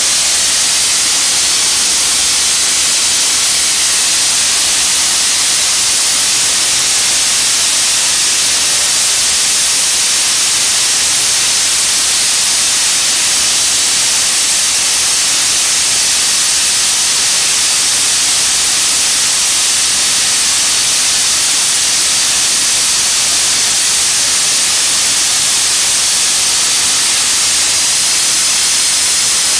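Steam hissing steadily from a standing Metropolitan Railway steam tank locomotive, escaping low at its front. The hiss is loud and unchanging.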